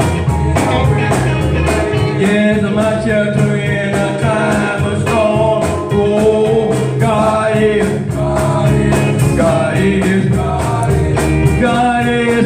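Gospel song: a voice singing over a band with a steady drum beat.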